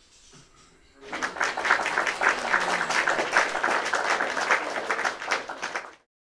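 Applause, many hands clapping in a dense, crackling wash. It starts about a second in and cuts off abruptly near the end.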